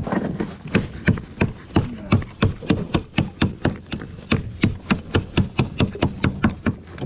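Small hatchet repeatedly striking oysters on the wooden edge of a fishing raft, crushing the shells to scatter as chum for black bream. The sharp knocks come steadily, about three a second.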